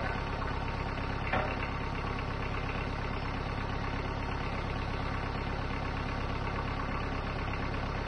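Small tractor engine idling steadily, with one sharp metallic click about a second and a half in.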